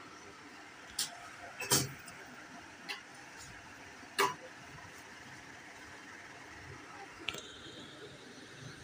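Sharp clicks and knocks, about four in the first half, as the brass clasp of a velvet-covered jewellery box is undone and the lid opened. A smaller click comes near the end, over a faint steady hiss.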